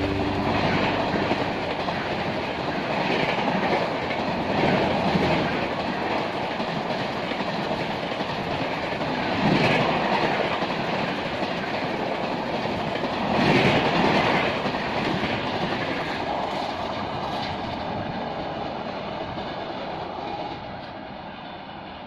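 Passenger train of red Indian Railways coaches running through a station at speed: steady rumble and clatter of wheels on rail, with a few louder swells as coaches pass. It fades away near the end as the last coach goes by.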